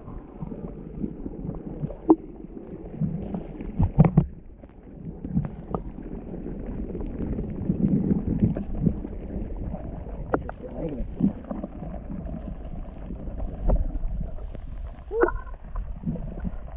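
Water gurgling and lapping around a kayak, with a few sharp knocks and bumps against the hull and a steady low rumble.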